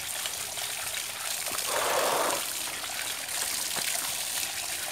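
Tap water pouring from a pipe into a plastic basket of freshwater mussels as they are rinsed and rubbed by hand. A brief louder swell of water comes about two seconds in.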